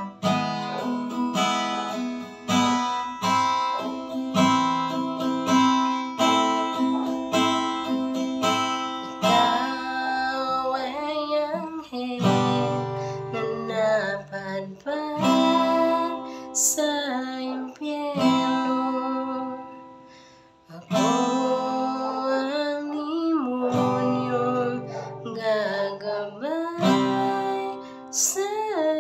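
A woman singing while strumming an acoustic guitar. For the first several seconds only the guitar's even strumming is heard, then her voice comes in over it; the playing falls briefly quiet a little past the middle.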